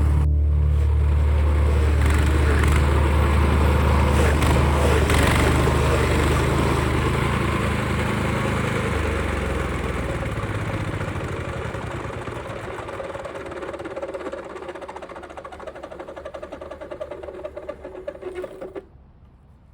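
DR Pro XL stump grinder's gas engine running while its cutting wheel grinds a rotten stump; the sound fades gradually over the second half and dies out shortly before the end.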